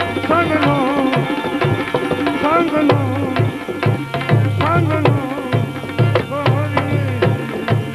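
Gujarati devotional bhajan music in an instrumental passage: tabla playing a steady rhythm of bass strokes under a wavering, ornamented melody line and a held drone.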